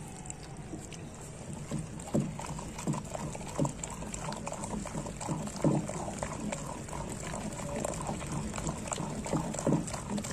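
Wooden masher pounding and churning hot cooked mustard greens in a clay pot: irregular wet squelches and dull thuds as the saag is mashed smooth by hand.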